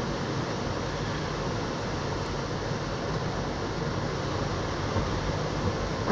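Steady road noise inside a moving car's cabin: engine and tyre noise blend into an even rumble and hiss.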